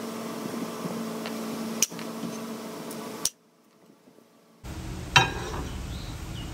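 A steady low hum with sharp clicks about a second and a half apart, then a second of near silence, then a low rumble with one loud knock.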